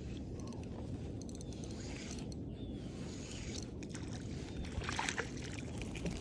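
Steady low rumble of a kayak out on the water, with a few short clicks scattered through it.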